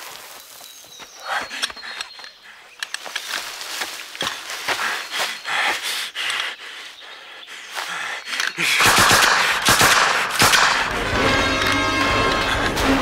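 Film soundtrack: scattered sharp cracks over a quiet background, then about nine seconds in a loud, dense swell of music comes in and carries on.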